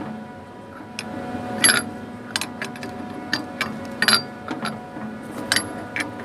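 Metal tools clicking and clinking irregularly against the steel fittings of a chiller's service valve, a dozen or so sharp knocks with a short metallic ring, over a steady machinery hum.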